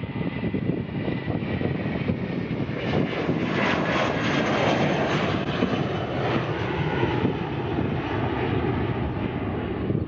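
Airbus A320-family twin-jet's engines at takeoff thrust as it lifts off and climbs away: a continuous jet roar that swells to its fullest a few seconds in, then eases slightly as the aircraft climbs out.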